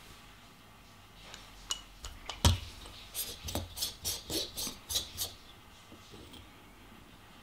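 Tamper being set into the Wacaco Picopresso's metal portafilter basket with a sharp knock, then tamping the ground coffee: a run of about eight quick clicking, scraping strokes, roughly four a second.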